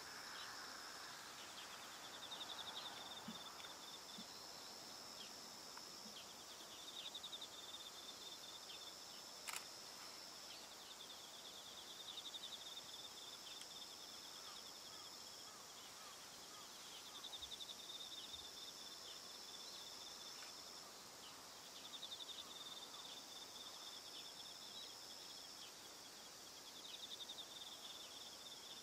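Crickets calling faintly in an autumn field: a high steady trill that stops and starts every few seconds, and a lower pulsed trill that swells about every five seconds. A single sharp click sounds about ten seconds in.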